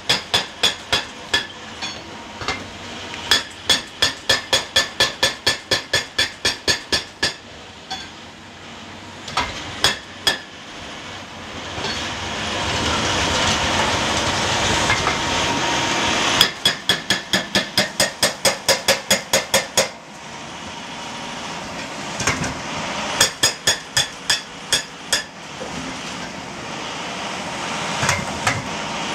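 Cat H180Es hydraulic breaker hammer on a Cat 352F XE excavator pounding rock in rapid runs of blows, about four to five a second, stopping and restarting several times. Between the runs the excavator's engine and hydraulics run steadily, louder for a few seconds in the middle.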